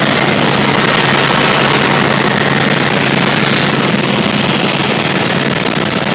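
Helicopter running, heard from inside the cabin: a loud, steady rush of engine and rotor noise with a steady low hum underneath.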